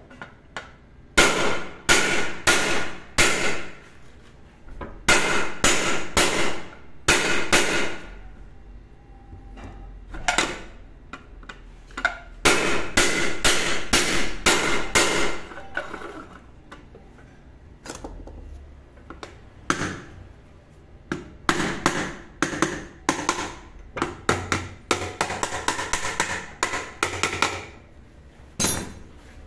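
Hammer blows on a pressure cooker lid resting on a clutch disc, struck in bursts of quick blows with a metallic ring and short pauses between them. The warped, misaligned lid is being knocked back into alignment.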